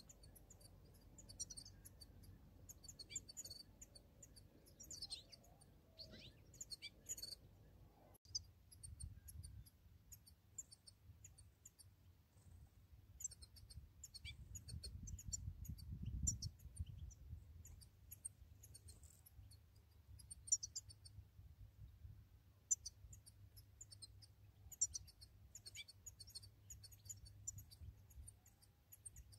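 European goldfinches twittering: short, high chirps scattered all through, in quick clusters. A low rumble runs underneath and swells about halfway.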